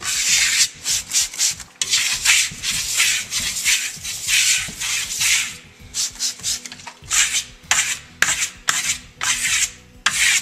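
Stainless steel trowel scraping over leather-hard American Clay Porcelina plaster in quick, irregular compression strokes, a hissing scrape with each pass. The steel is wearing against the clay as it works, leaving grey steel burn on the white finish.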